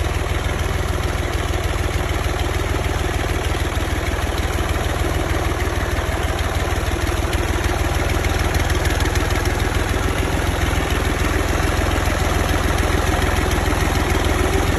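Diesel tractor engine running steadily at low revs while pulling a loaded trolley, a continuous low rumble that gets a little louder in the second half.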